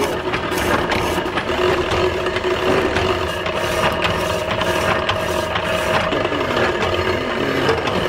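Reciprocating power hacksaw running, its blade frame sliding back and forth in a steady, rhythmic mechanical clatter.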